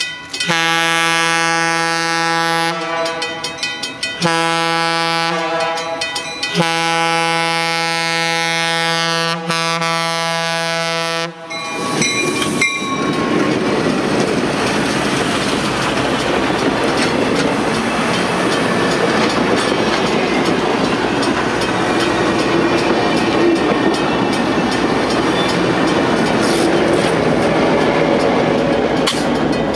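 A diesel locomotive's air horn sounds a chord in a series of blasts, the last one held for about five seconds, as a grade-crossing warning. From about twelve seconds in, the locomotives and passenger coaches pass close by, a steady rumble with the wheels clattering over the rails and the crossing.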